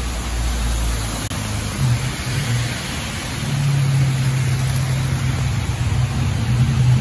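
Road traffic on a wet road: tyres hiss on the wet surface as cars and a motorcycle pass, and a steady low engine hum comes in about halfway through as buses draw near.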